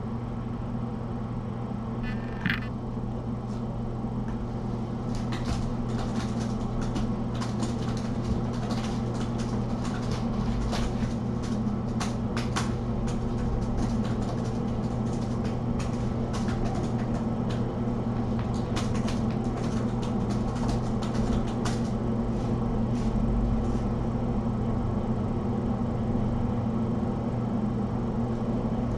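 A steady low machine hum, with scattered light clicks and rustles from kittens playing among toys and bedding. A brief high squeak comes about two and a half seconds in.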